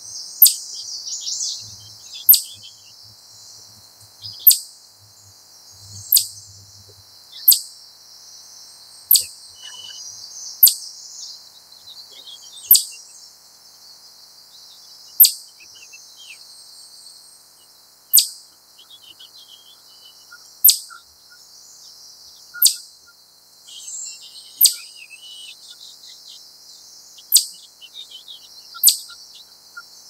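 Eastern chipmunk giving its repeated 'chip' call, the call it uses when alarmed: a single sharp, high-pitched chip every two seconds or so, fairly regular. Faint bird twittering goes on between the chips.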